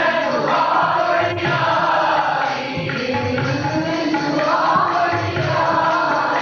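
Sikh kirtan: men singing a shabad to harmonium and tabla, the tabla keeping a steady beat under the voices.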